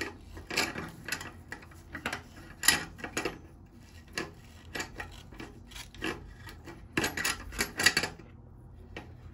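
Nitrile-gloved hands rubbing and scuffing against braided flexible supply hoses and their fittings under a sink, in irregular rasping strokes that pause briefly near the end.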